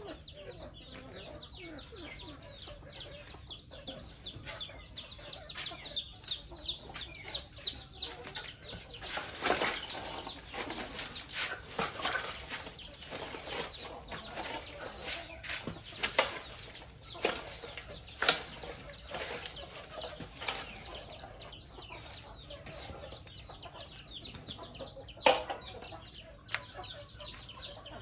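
A flock of chickens calling, with many short, high, falling peeps over clucking. Bursts of rustling noise and sharp knocks come around a third of the way in, again past the middle, and near the end.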